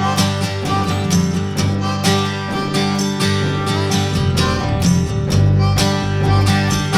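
Background music: upbeat country-bluegrass tune with acoustic guitar and fiddle over a steady beat.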